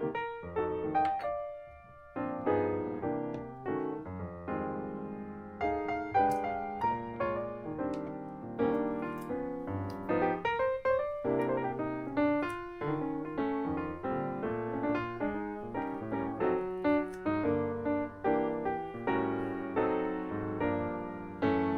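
Background piano music, a series of struck notes decaying one after another.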